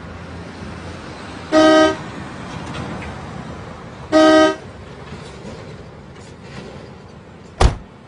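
Car horn honked twice, each blast about half a second long and about two and a half seconds apart, over a steady low background noise. A single sharp thump near the end.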